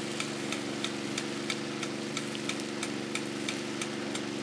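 Water pump engine running steadily at full throttle, feeding the irrigator, with a light tick repeating about three times a second.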